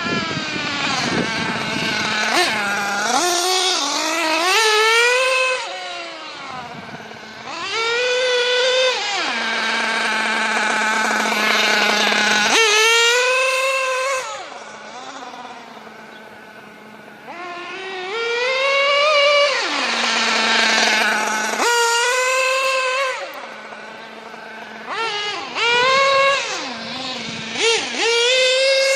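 Small nitro engine of a Losi radio-controlled car revving up in repeated blips, about six times, and dropping back to a steady idle between them while it is being tuned.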